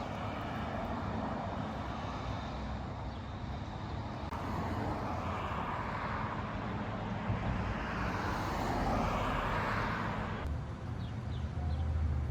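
Steady rushing noise over a low hum, shifting abruptly twice. Faint short high chirps come near the end.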